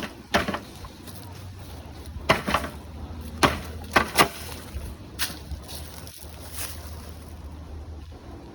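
A run of irregular sharp crackles and snaps, most of them in the first half, over a steady low rumble of wind on the microphone.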